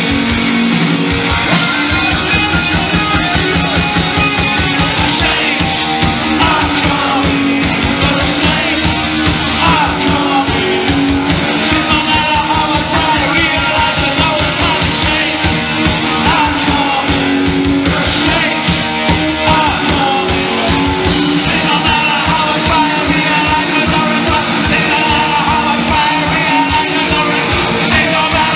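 Live punk rock band playing at full volume: a male lead vocal over electric guitars, bass guitar and a steady drum beat, with the bassist joining in on vocals.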